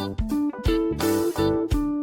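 Background music: an upbeat tune with guitar and a steady beat.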